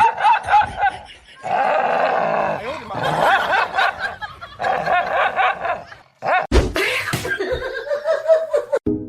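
A person laughing in choppy bursts, mixed with voice, broken by short pauses; a sharp knock sounds about two-thirds of the way through.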